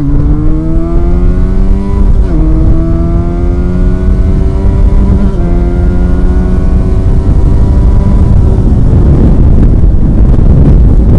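Benelli 302R's 300 cc parallel-twin accelerating hard under full throttle, its pitch climbing steadily with three quick drops for upshifts, the last about five seconds in. Near the end wind rush on the microphone swamps the engine note at speed.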